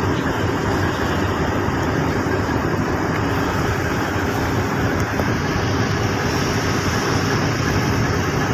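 A small boat's engine running steadily under way, a low hum under the rush of water and wind.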